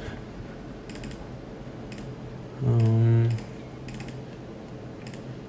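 Scattered clicks of a computer keyboard and mouse, a few at a time, at about one-second intervals. A man's voice gives a short held 'uhh' in the middle.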